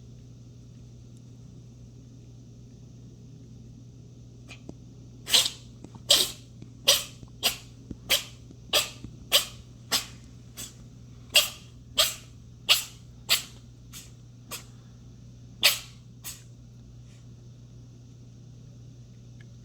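A cat with a cold sneezing hard in a long rapid fit of about sixteen sharp sneezes, roughly one and a half a second, starting about five seconds in and stopping a little after sixteen seconds.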